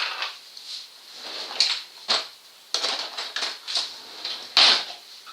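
Kitchen handling noises: a run of short clatters and knocks from cookware and containers being picked up and set down, about seven in all, the loudest a little before the end.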